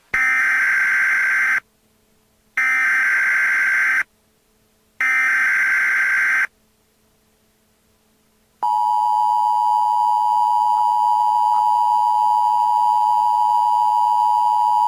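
Emergency Alert System alert: three harsh, buzzy bursts of SAME header data, each about a second and a half long, then about eight and a half seconds in the steady two-tone EAS attention signal starts and keeps sounding. It is the coded header and warning tone that open an emergency alert broadcast.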